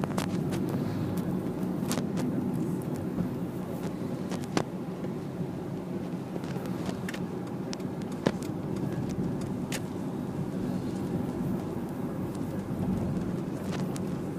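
Car driving, heard from inside the cabin: a steady low rumble of engine and tyres on the road, with a few sharp clicks and small knocks scattered through it.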